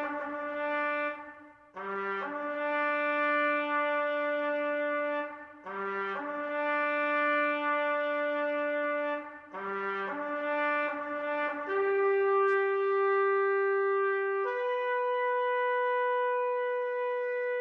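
Solo trumpet playing a slow bugle-style call: a short low note stepping up to a long held note, repeated three times, then two long held notes each higher than the last, the final one fading away near the end.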